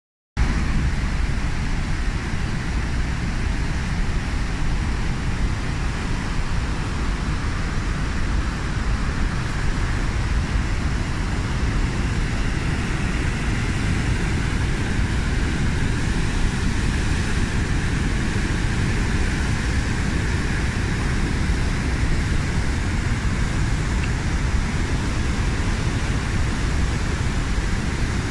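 Water pouring from a dam spillway into a whitewater river: a loud, steady rush with a deep rumble underneath.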